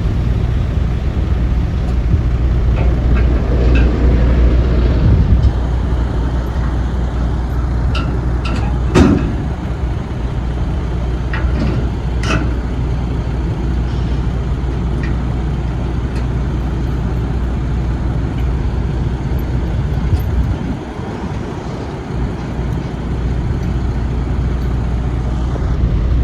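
Heavy truck diesel engine idling steadily, with a few sharp metallic knocks, the loudest about a third of the way in.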